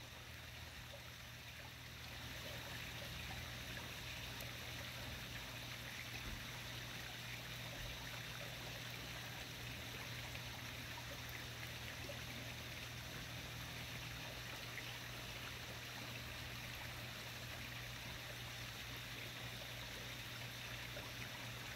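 Steady outdoor night background noise: an even hiss with a constant low hum underneath, unchanging throughout.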